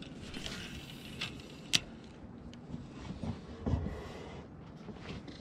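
Handling of a spinning rod and reel in a kayak: a few light clicks, one sharp and loud, and a low knock about two thirds of the way through, over a steady hiss of wind and water.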